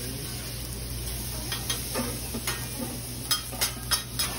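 Food sizzling on a hibachi flat-top griddle while a cook works it with two metal spatulas, the steel blades scraping and clicking on the hot plate. Several sharp clicks come in the last second or so.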